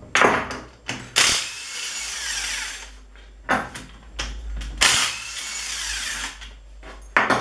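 Impact wrench loosening the rear cover bolts of a BMW E36 differential, in five short bursts with pauses between.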